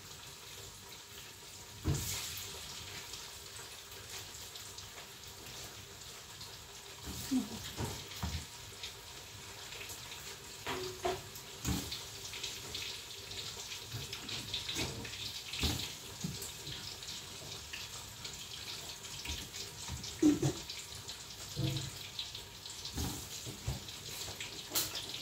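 Perkedel (potato fritters) frying in oil in a covered wok: a faint, steady sizzling hiss with scattered pops and light knocks.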